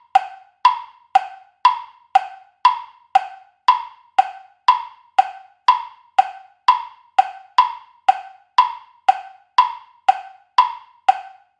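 Quiz countdown timer's clock-ticking sound effect, counting down the thinking time before the answer is shown: short, evenly spaced ticks about two a second, alternating higher and lower in pitch like a tick-tock. The ticking stops shortly before the end.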